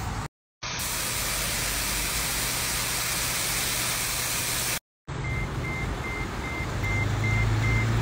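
Steady rushing noise of a rain-fed waterfall pouring down a rock face, cut off abruptly a little under five seconds in. Then a steady low hum with a high electronic beep repeating about three times a second.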